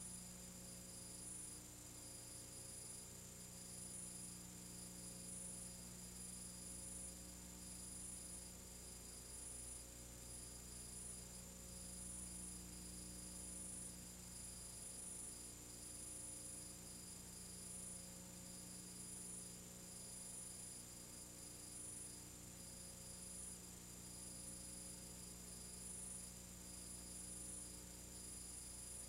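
Faint steady electrical hum with background hiss and a thin high-pitched whine that flickers slightly.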